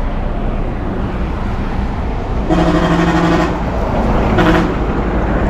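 Highway traffic rumble with a vehicle horn sounding twice: a blast of about a second, then a short toot.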